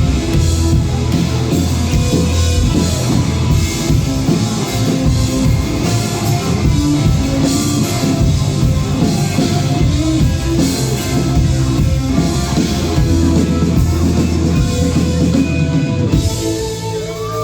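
A rock band with electric guitar and drum kit plays an instrumental passage with no vocals. It thins out slightly near the end.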